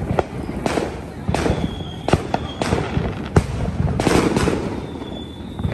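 Neighbourhood fireworks going off: a string of sharp bangs and pops about every half second, each trailing off briefly, with a denser cluster of explosions about four seconds in.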